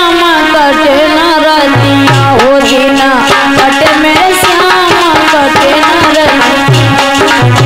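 Hindi devotional bhajan music: a woman's voice drawing out an ornamented, wordless melody over a hand-drum beat and a steady held accompanying note. Deep drum strokes come in about two seconds in and again near the end.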